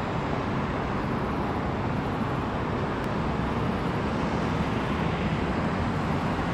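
Boeing 757-200's jet engines running as it lines up on the runway, heard at a distance as a steady, even rumbling hiss that grows slightly louder.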